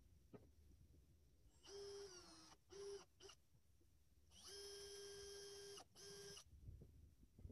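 Small Milwaukee cordless drill whining in a few short bursts, then running steadily for about two seconds, its bit set into a plastic lane gutter.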